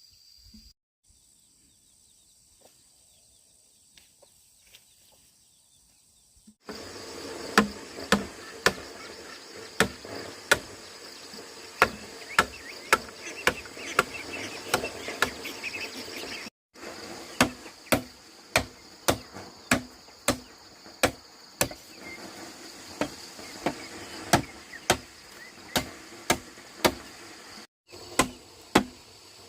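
Repeated sharp strikes, like chopping or knocking, start about seven seconds in and come about one to two a second, over a steady hum of insects.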